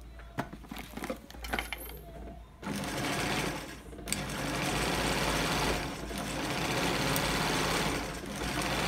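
A few sharp metallic clicks, then from about two and a half seconds in an industrial sewing machine runs steadily, easing off briefly a few times.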